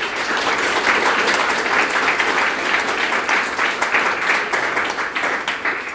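Audience applauding loudly and steadily, many hands clapping at once.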